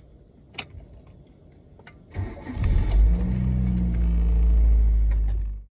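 Car engine starting, heard from inside the cabin: a few light clicks, then about two seconds in a brief crank, after which the engine catches and runs steadily with a deep rumble until it cuts off abruptly near the end.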